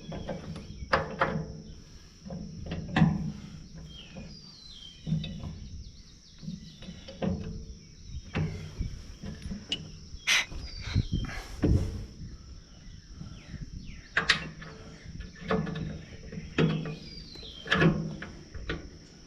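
Steady high drone of insects with a few short falling bird chirps, and irregular knocks and clunks scattered throughout.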